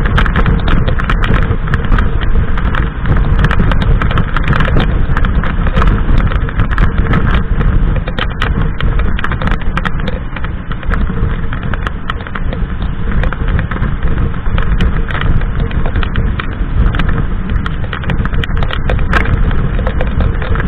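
Harley-Davidson Sportster's V-twin engine running steadily at motorway cruising speed, mixed with loud wind rush buffeting the handlebar-mounted microphone.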